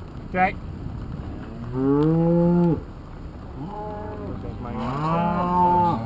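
Cattle mooing: three long moos, the loudest about two seconds in, with a short sharp call just before them.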